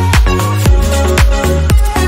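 Electronic dance music with a steady beat of about two beats a second.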